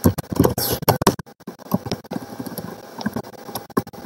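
Computer keyboard typing: a quick, irregular run of key clicks with a short pause a little over a second in.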